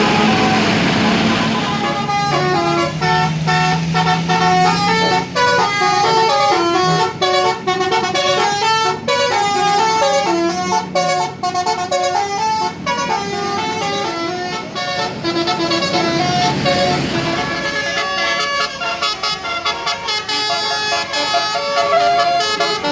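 A bus's basuri (telolet) musical horn playing a tune: a fast run of short pitched notes stepping up and down, starting about two seconds in after a short hiss.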